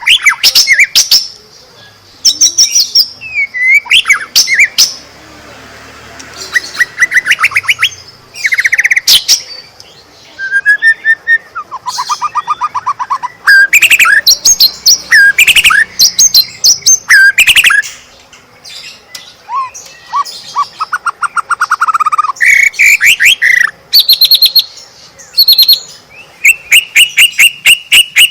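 White-rumped shama (murai batu) singing vigorously: a varied stream of clear whistles, fast trills and rapid repeated notes, mixed with sharp rattling notes, in bursts separated by short pauses.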